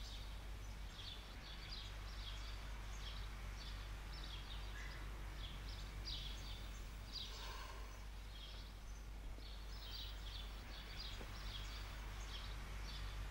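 Faint outdoor ambience: birds chirping in short, rapidly repeated notes over a steady low background rumble.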